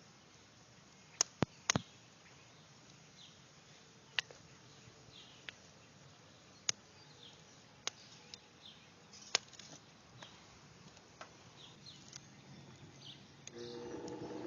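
Scattered sharp clicks and knocks over a low background: a quick cluster of three a little over a second in, then single ones every two to three seconds. A steady low hum made of several tones comes in about a second before the end.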